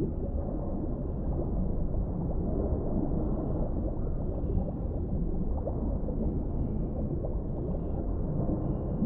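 Underwater ambience of deep water: a steady low rumble with many small gurgles rising through it.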